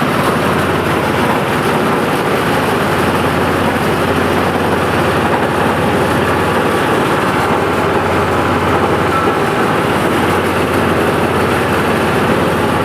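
Ishoku multifunction rice thresher running with its engine, a loud, steady mechanical drone with an even low hum that doesn't change.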